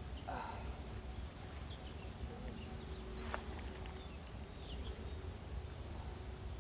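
Quiet outdoor ambience at the water's edge: a low steady rumble and a thin steady high-pitched tone, with one sharp click about three seconds in.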